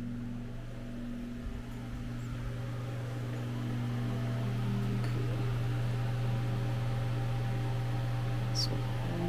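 Steady low mechanical hum, growing a little louder about four seconds in, with a brief high squeak near the end.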